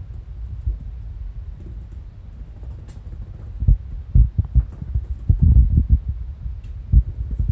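Kittens scampering and pouncing on tatami mats: irregular soft thuds of their paws, coming thick and fast from about halfway through, over a steady low hum.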